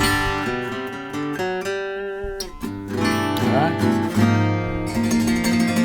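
Epiphone J200 jumbo acoustic guitar being played: held notes and chords ringing out, then fuller strummed chords from about three seconds in.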